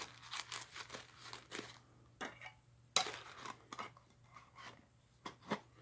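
Faint rustling and crinkling of paper and cardboard as a tobacco tin is handled, with scattered small clicks; the sharpest click comes about three seconds in.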